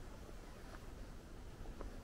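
Faint outdoor ambience: a low steady rumble with a couple of soft ticks about a second apart.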